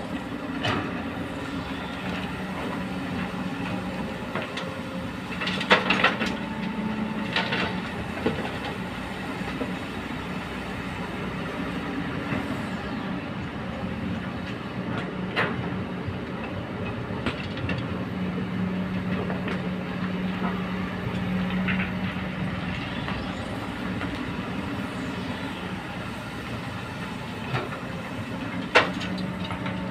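Komatsu PC200 and Kobelco hydraulic excavators digging, their diesel engines running with a steady hum. Occasional sharp metallic clanks and knocks come from the buckets working rock and earth, the loudest about six seconds in and near the end.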